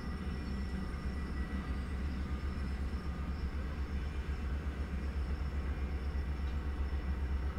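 Low, buffeting rumble of wind on an outdoor microphone, with faint thin high tones above it.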